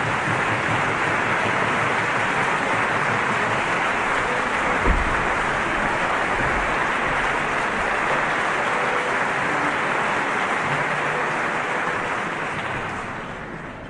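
Audience applause in a concert hall, steady and dense, dying away near the end. One low thump about five seconds in.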